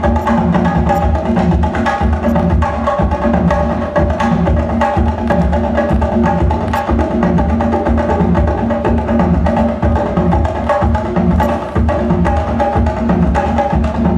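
Dance music with a busy percussion rhythm of sharp clicks and drum hits over sustained low and mid tones.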